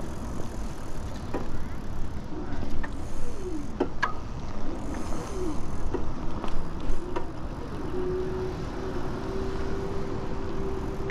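Ride noise from a moving e-bike: a steady low rumble of wind and tyres on pavement, with a few sharp clicks from bumps. A few short gliding whines, then a steady whine for about three seconds near the end.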